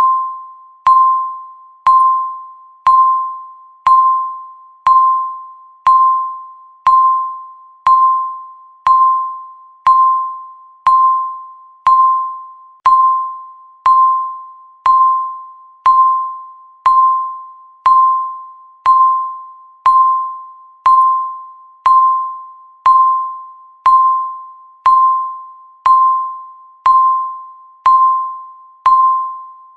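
Countdown timer beep: a short electronic tone at one steady pitch, sounding once every second, each fading away quickly before the next.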